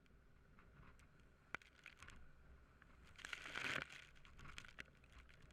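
Near silence, with a faint click about one and a half seconds in and a brief rustling noise a little past three seconds.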